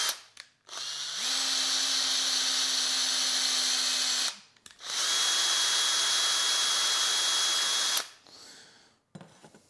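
Electric drill running twice for about three seconds each, its bit working into the ends of aluminium extrusion profiles. The motor picks up speed just after the first run starts, and the second run carries a steady high whine.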